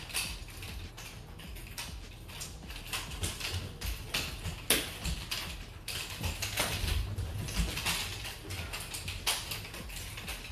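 A pair of nunchucks being swung and spun fast in a combo routine: quick whooshes through the air among an irregular run of clicks and knocks as the handles are caught and change direction.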